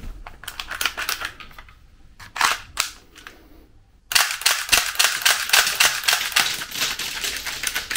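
Spring-loaded plastic toy Glock 21 pistol (Udaoli) being cleared of a jam and then fired. There are a few sharp plastic clicks as the slide is worked, then from about four seconds a fast, loud run of clicks and clacks as the slide blows back and ejects its plastic cartridges.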